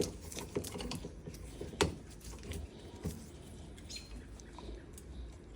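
Scattered light clicks and taps of metal parts and tools being handled, with a sharper knock about two seconds in, another about three seconds in, and a brief squeak near four seconds.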